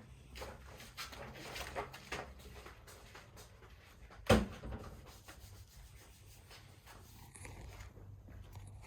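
Rubbing and handling noises, with one loud knock about four seconds in.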